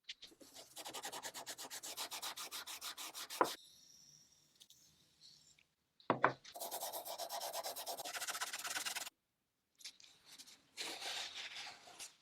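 Rapid back-and-forth hand sanding strokes, about eight a second, in three runs with short pauses between. A sharp knock comes at the end of the first run and another just before the second.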